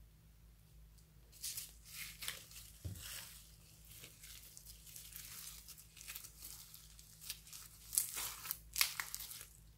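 Pink slime loaded with foam beads (floam) and glitter being squeezed and kneaded by hand, giving irregular crackling and popping that grows thicker and louder near the end.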